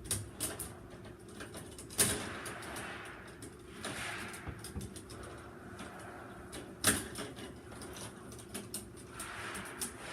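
Electrical tape being pulled off the roll and wrapped onto wires in rasping pulls of a second or two, with small ticks of handling and two sharp clicks.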